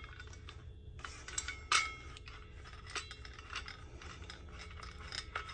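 Light metallic clicks and scraping as a survival shovel's metal blade head is twisted onto its reverse-threaded handle section, with one sharper click about a second and a half in.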